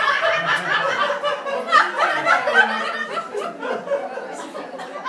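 A group of people laughing and chattering at once, several voices overlapping.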